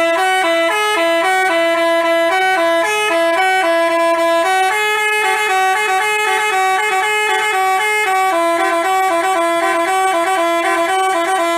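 Multi-trumpet 'telolet basuri' bus horn playing a quick tune, the notes changing several times a second with two notes sounding together. It starts and stops abruptly.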